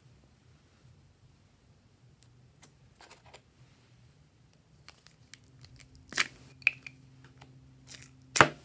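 Glossy slime squeezed and pulled by hand, giving quiet clicks and then three louder crackling pops from trapped air in the second half.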